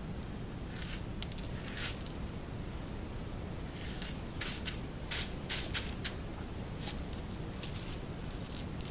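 Dry letter-shaped cereal pieces rustling and crackling as a hand sweeps and digs through a pile of them on a hard countertop. The crackles come in short bursts, a few about a second in and many from about four seconds on, over a steady low hum.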